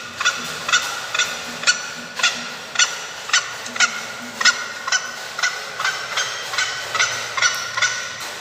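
Recorded bird calls played through a battery-powered electronic bird-caller speaker: a steady series of short, sharp fowl-like calls, about two a second.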